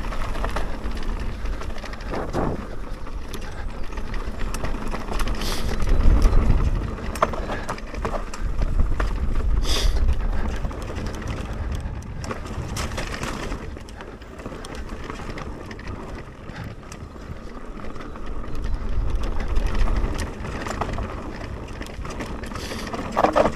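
Mountain bike descending a dirt trail at speed: tyres rolling over dirt and the chain and frame rattling over bumps, with short knocks from the rough ground. Wind rumbles on the microphone in swells.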